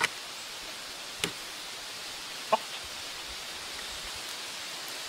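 Steady outdoor hiss with three short clicks of a metal fork against a cast iron skillet, the loudest about two and a half seconds in.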